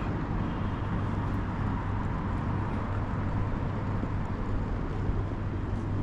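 Steady urban traffic noise with a continuous low engine hum.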